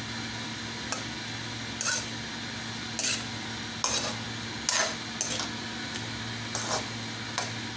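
A spatula scraping and knocking against a frying pan about eight times at uneven intervals as raw chicken pieces are stirred and sautéed, over a steady low hum.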